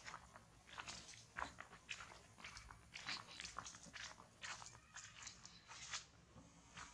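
Faint footsteps crunching through dry fallen leaves: irregular crackles, several a second.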